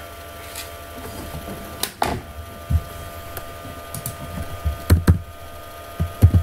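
Computer keyboard keys clicking in scattered single keystrokes, a few seconds apart at first and closer together near the end, over a faint steady hum.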